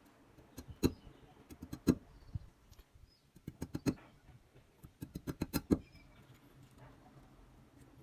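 Small bamboo sticks being cut at an angle with a blade: sharp clicks and cracks. Single ones come about one and two seconds in, and quick clusters of them come around four and five and a half seconds.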